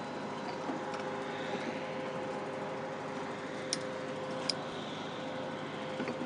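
Steady machine hum with several steady tones, and two sharp clicks a little past the middle.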